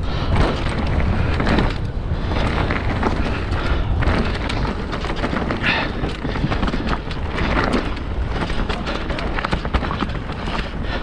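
Mountain bike riding down a rough dirt trail: a steady rush of tyres and wind buffeting the microphone, with the bike rattling and knocking over the ground throughout.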